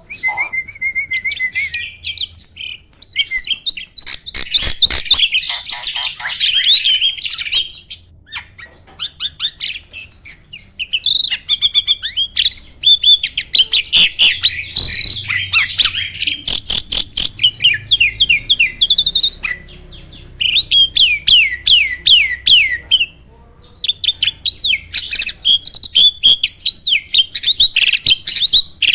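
A jalak starling sings loudly and nonstop in long bursts of rapid chirps, whistles and trills, with quick up-and-down sweeps in pitch. Brief pauses come about a third of the way in and again near the three-quarter mark.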